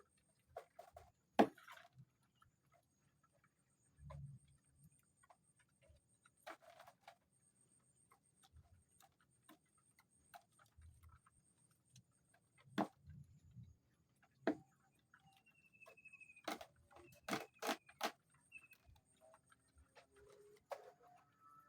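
Sparse, irregular small taps and clicks, with a quick run of sharper ones about three-quarters of the way through and a faint short high whistle just before them.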